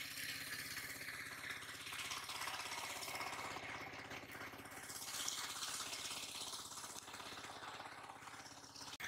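An engine running steadily in the background, its even drone unchanging.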